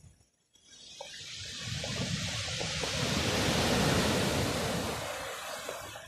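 Sea surf on a pebble beach: after a brief lull, a wave rushes in and washes up over the pebbles, swelling to a peak about four seconds in and fading away near the end.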